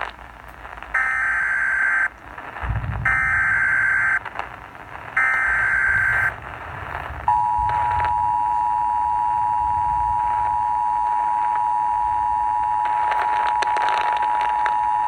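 Emergency Alert System activation received over AM radio: three bursts of SAME digital header data, each about a second long, then about seven seconds in, the steady two-tone EAS attention signal (853 and 960 Hz), all over radio static.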